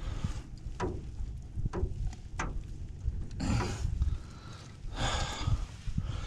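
Handling noise in a small aluminium boat: a few sharp knocks on the metal hull, then two longer bursts of rustling from the mesh landing net as a freshly landed flathead is lifted and handled.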